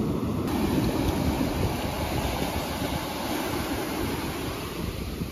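Ocean surf with wind buffeting the microphone: a steady rumbling noise that sits mostly low, with no distinct events.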